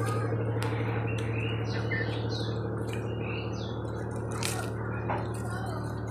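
Small birds chirping, a quick run of short chirps in the first half, over a steady low hum, with a few scattered light clicks.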